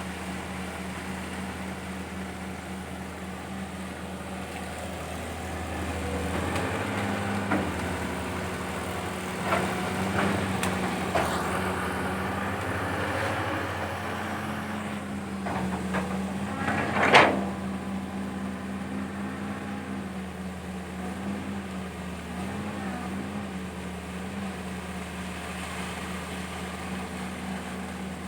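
Caterpillar 320 hydraulic excavator's diesel engine running steadily as it digs, working harder for several seconds partway through, with sharp metallic clanks from the bucket and arm, the loudest about 17 seconds in.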